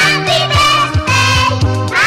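Upbeat background music with a steady beat, a bass line and a gliding melody line.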